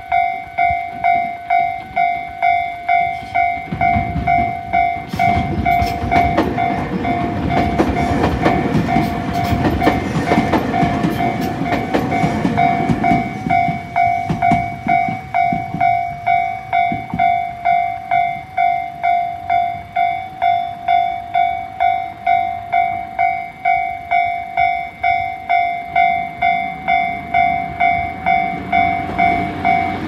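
Japanese railway level-crossing warning bell, an electronic ding repeating about twice a second. A train passes over the crossing from about four seconds in, its wheels clattering over the rails, loudest around the middle and fading away a few seconds later while the bell keeps ringing.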